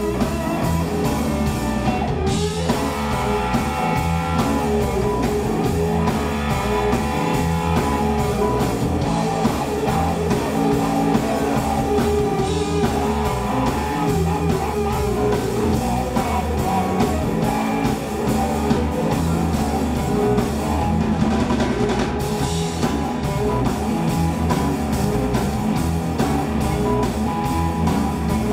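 Live electric blues band playing: electric guitar over bass guitar and drum kit.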